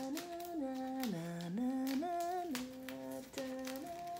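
A woman humming a tune in held notes that step up and down, with short rustles of paper being handled.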